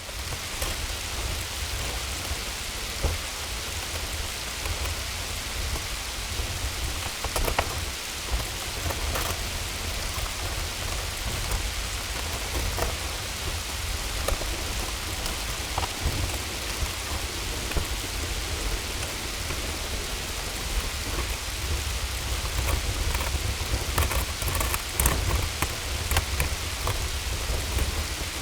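Hailstorm: a steady hiss of hail and rain falling, with scattered sharp clicks of stones striking hard surfaces, over a continuous low rumble. The clicks come thicker near the end.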